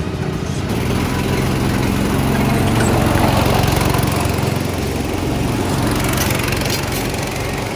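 Small go-kart engines running and revving as several rental karts pull away from the pit lane onto the track. The sound grows louder to a peak about three seconds in, then eases as they move off.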